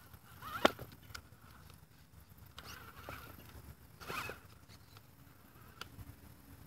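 Vaterra Twin Hammers radio-controlled rock crawler clambering over river rocks: a few sharp knocks and scrapes of its tires and chassis on stone, the loudest about half a second in and another cluster about four seconds in, with short rising and falling whines from its drivetrain.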